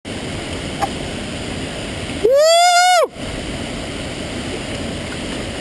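Steady rushing of a waterfall. About two seconds in, a loud high-pitched tone cuts in for under a second, rising at its start, held level, then dropping off.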